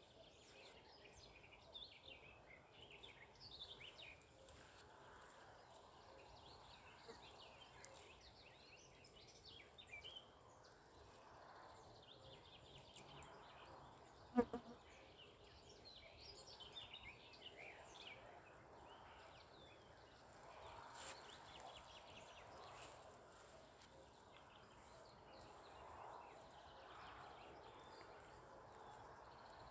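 Faint songbirds chirping and warbling in riverside trees, with one short, much louder pitched call about halfway through.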